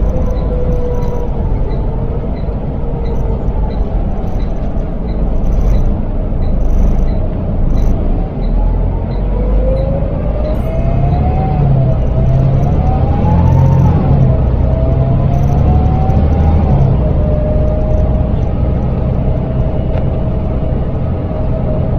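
Inside a Volvo B7L single-deck bus under way: the rear-mounted six-cylinder diesel rumbles low while a drivetrain whine rises and falls with road speed. The whine climbs in steps through the middle and then holds steady. A light regular ticking runs through the first half.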